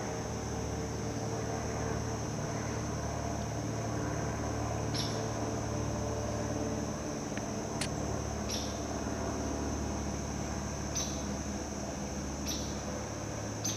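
A steady low hum with five short, high chirps scattered through it.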